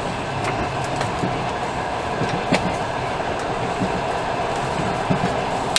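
Steady running noise of a passenger train carriage heard from inside, with a few short clicks as plastic-wrapped boxes are pulled open.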